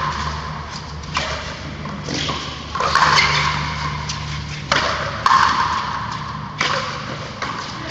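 Frontenis rally: a hard rubber ball smacked with rackets and slapping off the concrete frontón wall, about half a dozen sharp hits, each with a ringing echo off the high walls.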